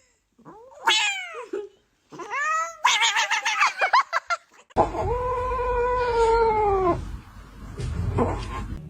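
Cats meowing: two meows that rise and fall, then a quick run of short repeated calls. After that comes one long, drawn-out yowl held steady for about two seconds.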